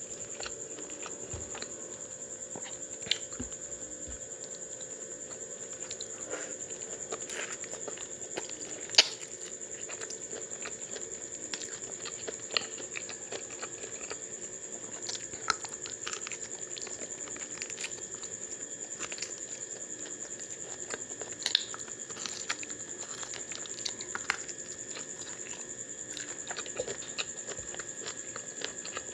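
Close-up eating sounds: chewing and mouth clicks while fingers mix chicken curry and cauliflower rice, heard as scattered small clicks over a steady high whine.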